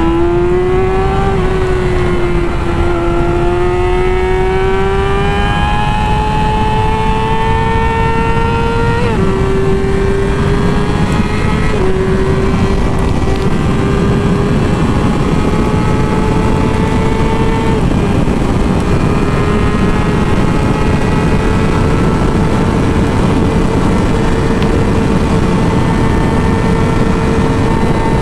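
Yamaha R6's inline-four engine revving high under acceleration. Its note climbs in each gear and drops at upshifts about 9 and 12 seconds in, with a smaller dip near 18 seconds, then holds a steady high note at speed over wind rush.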